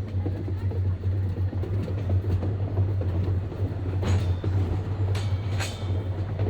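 Electric rack-railway train running: a steady low hum from the drive, with irregular clicks and rattles of the running gear and a few brief squeals about four and five seconds in.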